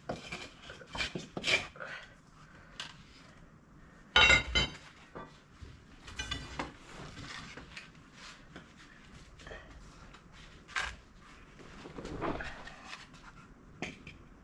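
Scattered knocks and clanks of metal tools and wood blocks being handled and shifted, with a loud ringing metal clang about four seconds in and another ringing clank about two seconds later.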